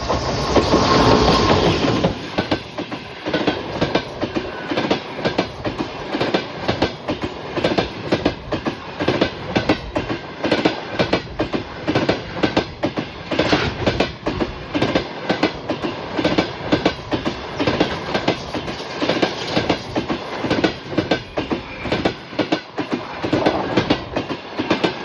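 EP20 electric locomotive with a passenger train passing at speed. A loud rush comes as the locomotive goes by at the start, then a long run of rhythmic clickety-clack as the coaches' wheels cross the rail joints.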